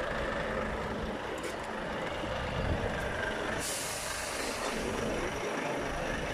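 Heavy diesel trucks running with a steady low rumble, and a sudden hiss of air brakes letting off air about three and a half seconds in, fading after about a second.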